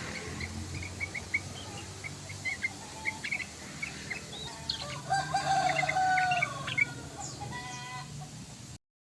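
Yellow-vented bulbul (trucukan) calling in quick, short chirping notes. About five seconds in there is a louder, longer call lasting just over a second. The sound cuts off abruptly near the end.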